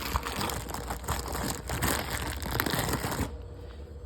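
Packaging of a new toilet fill valve crinkling and rustling as it is opened and the parts handled, stopping abruptly about three seconds in.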